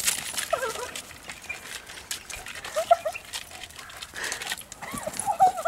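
Catahoula leopard dog giving a few short, high whines while its claws scrabble and scrape on tree bark as it climbs the trunk.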